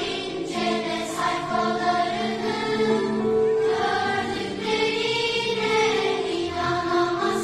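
Choir singing a song together with a string orchestra, the voices holding long notes over the strings.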